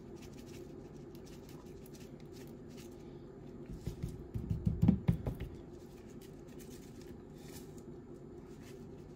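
A hand patting and pressing dry rub into raw steaks on a metal baking sheet: a short cluster of soft, low thumps about four to five seconds in, over a steady low hum.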